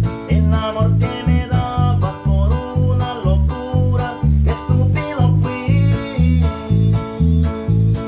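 Band music: a guitar-led melody over a steady bass beat, about two beats a second.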